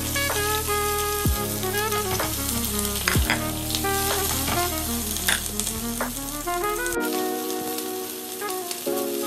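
Sliced red onions sizzling as they drop into hot oil in a frying pan, then stirred with a spatula, over background music.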